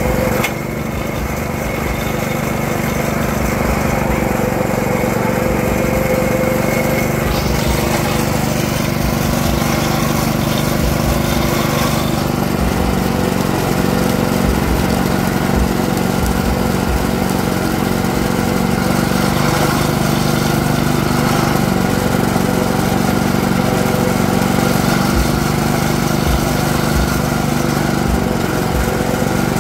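Motorized sugarcane juice press running steadily, its motor humming as sugarcane stalks are fed through and crushed between its rollers.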